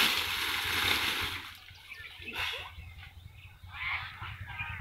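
Dry sugarcane leaves and cane trash rustling and crackling as they are handled, loudest for the first second and a half, then a few brief rustles.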